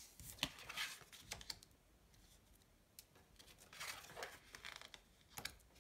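Lenormand cards being drawn from the deck and laid face up on a table: faint slides and light taps of card stock, in a cluster about a second in and another around four seconds, with a last tap near the end.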